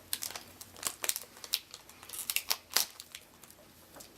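Crinkling of something being handled, a run of short, irregular, sharp crackles.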